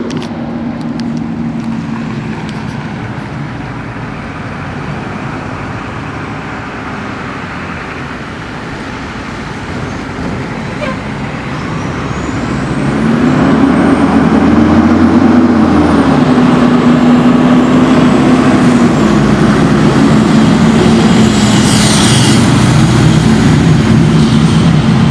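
A fire department ladder truck's diesel engine approaching, with tyres on wet pavement; it grows much louder about halfway through as the truck draws near and pulls in. The engine note rises and falls once as it comes close. A brief high hiss comes near the end.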